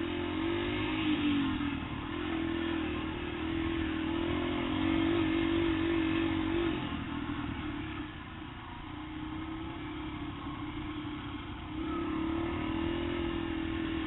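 Yamaha TT-R125's single-cylinder four-stroke engine running under throttle, heard from on the moving dirt bike, its pitch rising and falling as the rider works the throttle. It eases off for a few seconds past the middle and picks up again near the end.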